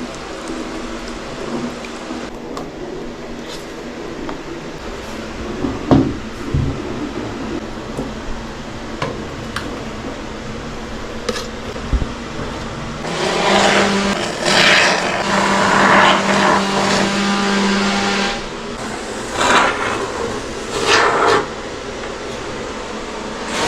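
Steady mechanical hum with a few knocks, then a louder motor running for about five seconds, followed by two short bursts of it near the end.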